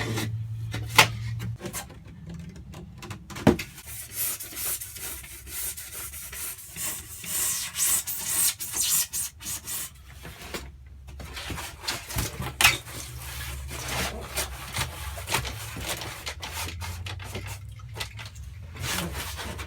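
Rubbing and scraping on a rigid polyiso foam insulation board as it is traced and worked to fit a window, with a few sharp knocks, the loudest about a second in.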